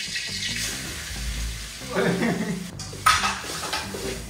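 Drained wet noodles tipped into hot oil in a steel pot, sizzling in short bursts about two and three seconds in, with a metal spoon stirring and clinking against the pot.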